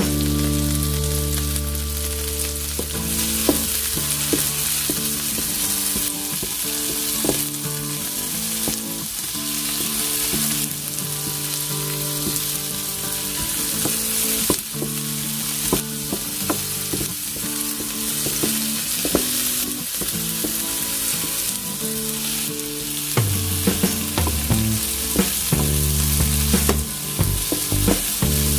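Tomato slices sizzling in hot oil in a nonstick frying pan, stirred and pushed around with a wooden spatula, with scattered light taps and scrapes.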